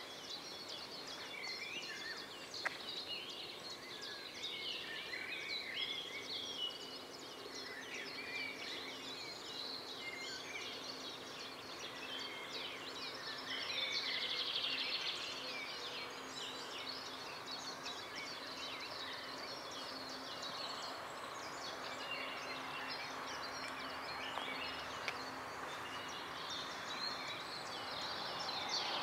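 Songbirds chirping and singing repeatedly over steady outdoor background noise, with a faint rushing hiss that builds in the last few seconds.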